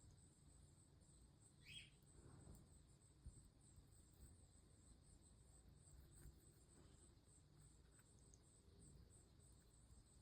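Near silence: room tone with a faint steady high-pitched whine and a few faint soft ticks.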